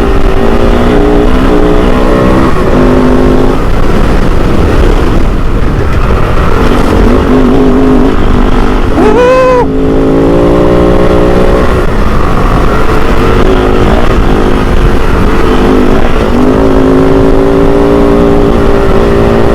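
Kove 450 Rally's single-cylinder four-stroke engine running steadily under load as the bike is ridden off-road. About halfway through the revs drop and climb again sharply.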